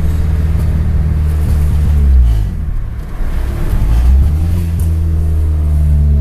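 1989 Acura Integra's engine and loud exhaust pulling under acceleration. The pitch drops at a gear change about two and a half seconds in, then climbs again as the car accelerates in the next gear.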